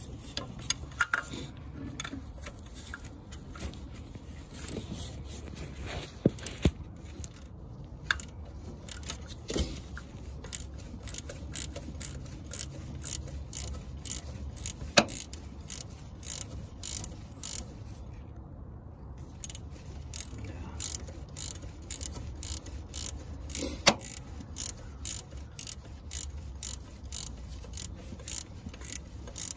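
Ratchet wrench clicking through repeated short strokes on a bolt. The clicks come faster and more regularly in the last third, with a few louder metal knocks in between.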